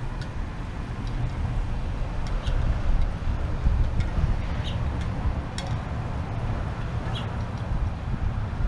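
A low, uneven outdoor rumble, with short high bird chirps every second or two.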